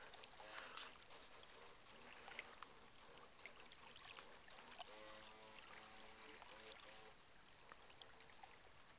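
Near silence, with a thin, steady high-pitched whine throughout and faint distant voices about five to seven seconds in.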